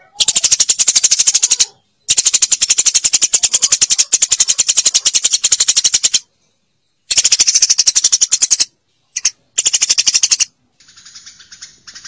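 Eurasian tree sparrow chattering: long runs of rapid, sharp chirps in bursts of one to four seconds with short breaks between them, and a quieter, softer sound near the end.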